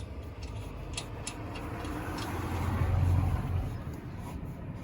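A passing car, its road and engine noise swelling to a peak about three seconds in and then fading. A few light metallic clicks of lug nuts being threaded onto a wheel by hand come before it.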